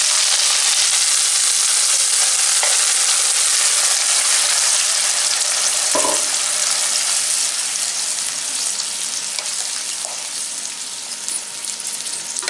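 Tomato and dried red chilli paste sizzling in hot oil, butter and fried garlic in a non-stick pan as it is stirred with a wooden spatula. The sizzle slowly dies down as the paste cools the oil, with a single knock about halfway through.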